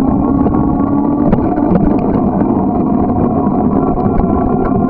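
Riding noise picked up by a bicycle-mounted camera: steady wind and road rumble with a constant hum and scattered light ticks.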